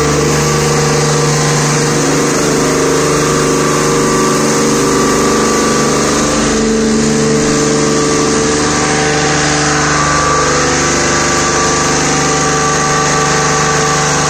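High-pressure drum washer running: its electric-motor-driven high-pressure pump humming steadily over the hiss of water jets spraying inside the drum.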